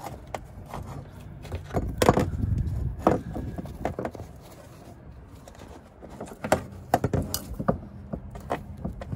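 Irregular clicks, knocks and rustling from hands pulling wiring and insulation out of a marker-light opening in a truck's metal sleeper panel. The knocks cluster about two seconds in, around three seconds, and again in a burst between six and seven and a half seconds.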